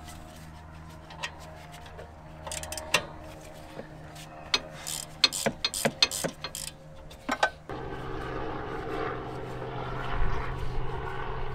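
Irregular metal clicks and clinks of a hand tool working the rear brake caliper guide bolts as they are loosened with an 8 mm Allen key, the sharpest cluster in the middle, over a steady low hum. About eight seconds in, a louder steady rumble sets in.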